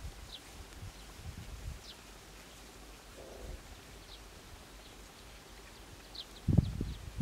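Open-field ambience with faint, short high chirps of small birds every second or so, and a few low thuds, the loudest cluster near the end.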